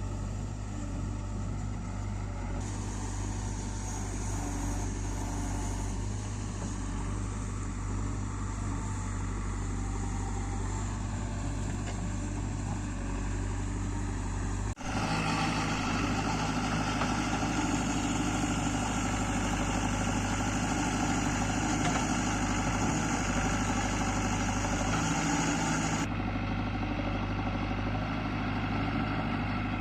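JCB 3DX backhoe loader's diesel engine running steadily, with an abrupt break about halfway through after which it is louder.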